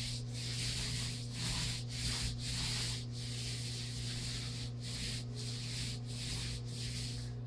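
Paintbrush strokes on a wall: a scrubbing brush-on-plaster rub repeated roughly twice a second, over a steady low electrical hum.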